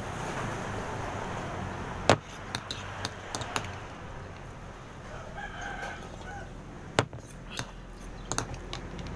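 A rooster crowing once, about five seconds in. Sharp clinks and knocks of spoon and bowl are louder, the strongest about two seconds in and again about seven seconds in.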